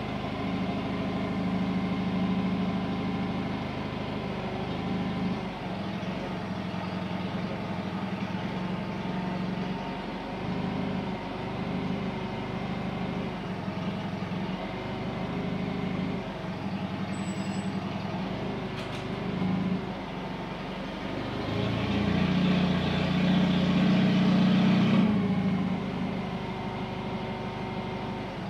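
A heavy machine running steadily with a low hum and a wavering level, growing louder and harsher for a few seconds past the middle before settling back.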